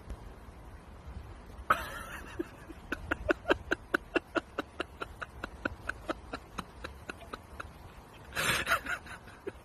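A dog yapping in a fast, even string of short high yaps, about five a second, with a brief burst of noise before it starts and another near the end.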